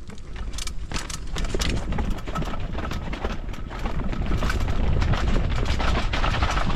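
Enduro motorcycle being ridden over rough ground: a low rumble of engine and wind with many small clattering knocks, growing louder through the stretch.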